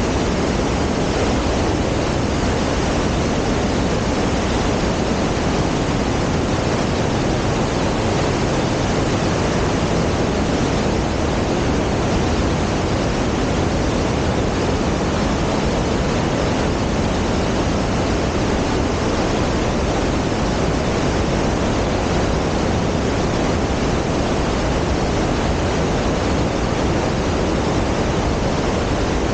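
Mountain creek rushing as whitewater over boulders and small falls in a narrow rock gorge: a loud, steady rush of water with no let-up.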